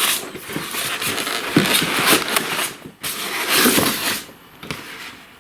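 A cardboard box being opened and its contents handled, with uneven scraping and rustling that eases off near the end.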